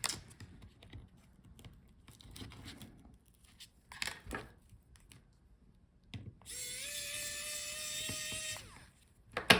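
Small electric screwdriver running for about two seconds, a steady whine that steps up slightly in pitch as it starts, backing out a laptop bottom-case screw. Soft clicks and taps of tool and case handling come before it, and a sharp click comes near the end.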